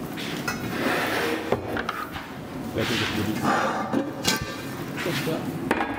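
Low, unclear speech over a few sharp knocks and scrapes of heavy enamelled cast-iron cookware being lifted and set down on a shelf.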